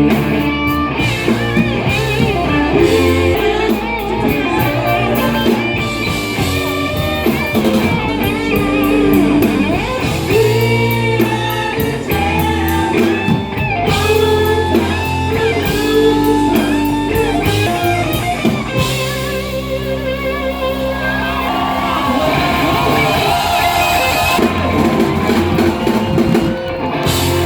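Live band playing rock music, with guitar out front over bass and drums.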